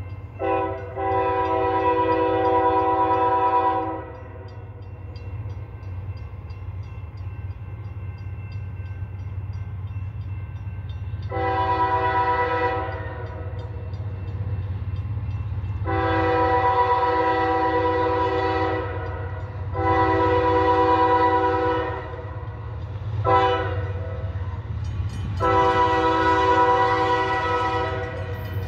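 Nathan Airchime K5H five-chime air horn on a GE AC4400CW diesel locomotive, loud, sounding a short toot and a long blast, then after a pause three long blasts, a short one and a final long one. The closing long-long-short-long is the grade-crossing signal. A steady low rumble runs beneath the blasts.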